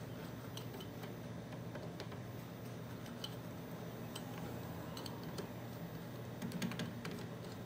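1949 Westinghouse H-223 tube television switched on, its speaker giving a steady low hum with scattered faint crackles and ticks, the scratchy speaker noise of the freshly restored set.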